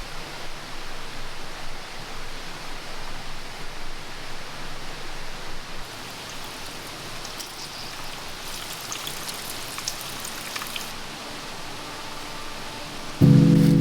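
Wood campfire burning, a steady hiss with sharp crackles and pops, busiest between about six and eleven seconds in. Soft music comes in near the end.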